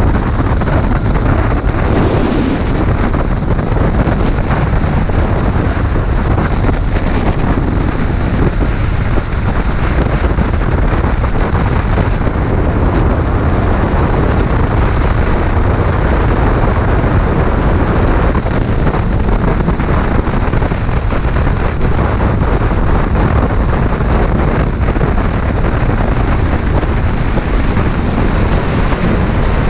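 Loud, steady wind buffeting the microphone of a moving motorcycle, with engine and road noise underneath.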